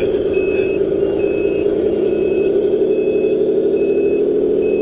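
RC dump truck's sound module playing a steady diesel engine drone under a reversing beeper that beeps about once a second as the model truck backs up.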